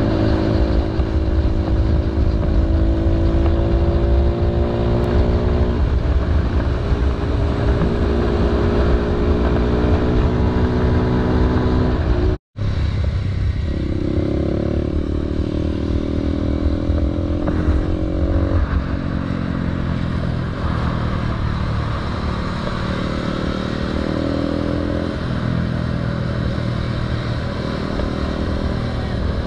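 Honda Grom single-cylinder four-stroke engines running at a steady cruise, with the engine pitch shifting up and down a few times as throttle and gears change. Wind rumbles on the microphone at riding speed, and the sound cuts out for a moment about twelve seconds in.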